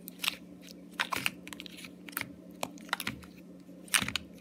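Plastic bottles and containers clicking and knocking against each other as they are handled, in irregular taps, the loudest about a second in and near the end.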